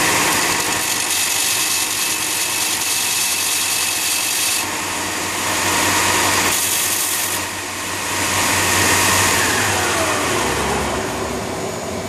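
Belt sander running while a drill spins a ferrocerium firesteel rod against the moving belt, grinding the rod's surface rough so that glue will grip it. The grinding changes abruptly several times as the rod is pressed on and eased off, and near the end a tone falls in pitch.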